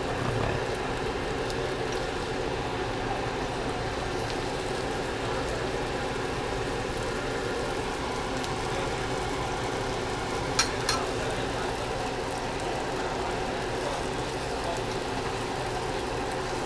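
Dumplings frying in oil in a stainless steel frying pan, a steady sizzle under a constant drone. About ten and a half seconds in come two quick sharp clicks of a metal fork against the pan.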